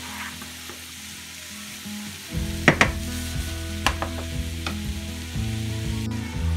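Zucchini and egg sizzling in a frying pan while a spatula stirs through them, with a few sharp taps and scrapes of the spatula against the pan between about two and five seconds in.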